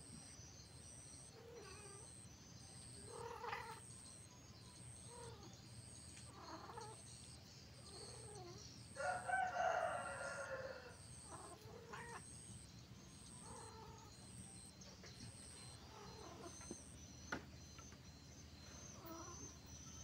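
Domestic cats yowling and growling at intervals in a standoff, with a louder drawn-out call of about two seconds some nine seconds in. A faint high-pitched chirp pulses about twice a second behind them.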